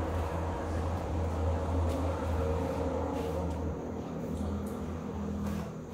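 Steady low rumble of background noise, with a few faint clicks scattered through it.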